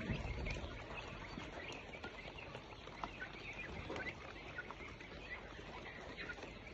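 Chickens chirping in many short, scattered calls over a steady background noise.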